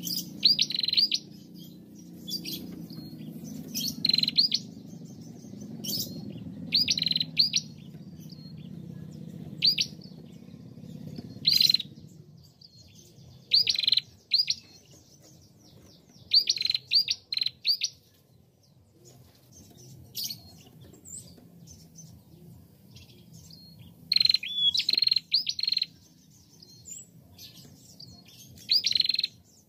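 Female prenjak calling in short, sharp, high chirps, in quick clusters of two to four every second or two, with a quieter gap of a few seconds later on. A low background rumble underneath stops about twelve seconds in.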